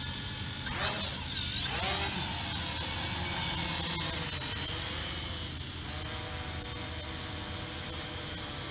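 SG700 toy quadcopter's motors and propellers whining. The pitch swings down and up about a second in as it lifts off, then holds a steady high whine as it climbs and hovers.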